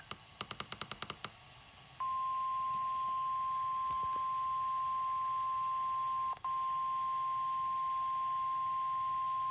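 A weather radio alert opens with a quick run of about a dozen clicks, then the 1050 Hz NOAA Weather Radio warning alarm tone begins about two seconds in. The tone is one steady high pitch, briefly dropping out around six seconds in.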